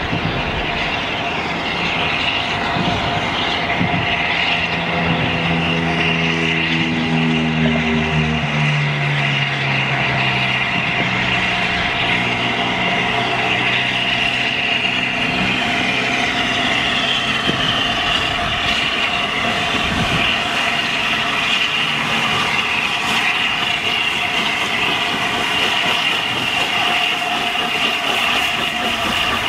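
Peppercorn A1 class 4-6-2 steam locomotive 60163 Tornado running a train into the station, the train sound growing as it nears, over a steady hum of road traffic from an overhead flyover. About eight seconds in, a passing vehicle's engine note drops in pitch.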